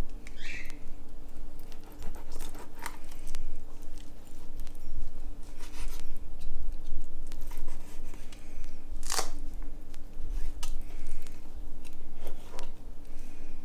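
Fillet knife slicing and scraping through a raw striped bass fillet on a wooden cutting board, trimming away the dark meat, with scattered small taps of the blade on the board and one sharper click about nine seconds in. A steady low hum runs underneath.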